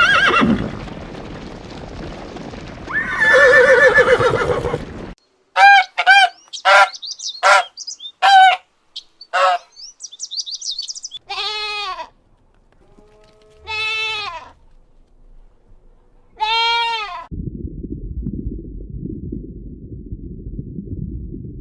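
A run of different farm-animal calls, one after another. First comes one pitched call over a noisy background. Then short, sharp calls repeat about twice a second, a brief high chirping follows, and three long calls rise and fall in pitch, a couple of seconds apart. Low noise comes near the end.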